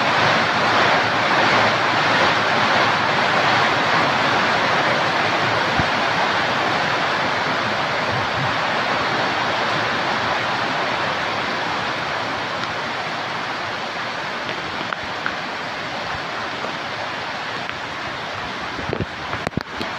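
Heavy rain pouring down in a steady, dense hiss that slowly eases a little in loudness. A few faint knocks come near the end.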